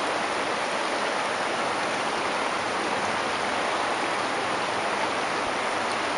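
Steady rushing of a flood-swollen creek overflowing its banks, a constant even roar of fast-moving water.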